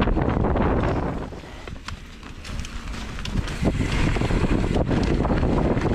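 Wind buffeting the microphone while moving fast, over a low rumble with scattered sharp rattling clicks. It drops away for about a second and a half a little after the start, then comes back.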